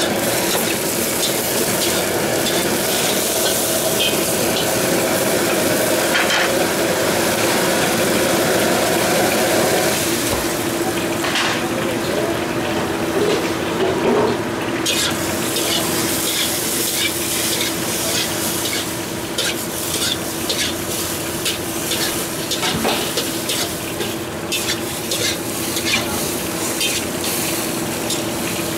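Shrimp sizzling loudly as they fry in oil in a wok, with a steady hum underneath. From about halfway on, a spatula scrapes and clacks against the wok again and again as the shrimp and scallions are stir-fried.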